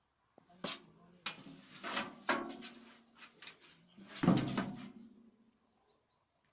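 A cat rolling and scrambling in a metal wheelbarrow tray: a run of knocks and scrapes from its body and claws on the metal, with the tray ringing low. The loudest knock comes about four seconds in, as the cat turns over and sits up.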